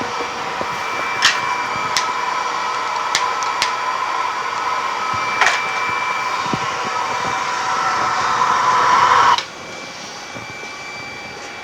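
Gas-air glass-bending burner running with a steady hiss while neon tubing is heated, with a few sharp clicks of glass knocking. The burner's hiss rises slightly, then cuts off suddenly about nine seconds in, leaving a quieter steady hum.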